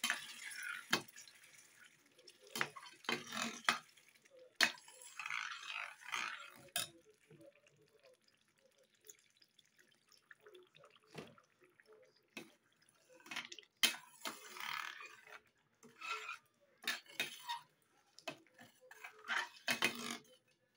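Metal spoon stirring a thin tomato stew in a stainless steel pot, clinking and scraping against the pot many times at uneven intervals, with the sauce sloshing and splashing between the clinks.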